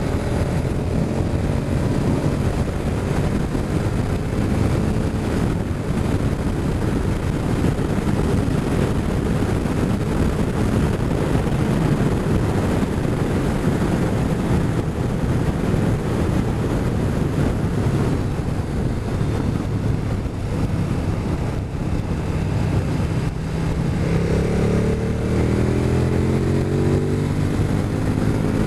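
Motorcycle engine running at road speed, mixed with heavy wind rush on the microphone; near the end the engine note climbs as the bike accelerates.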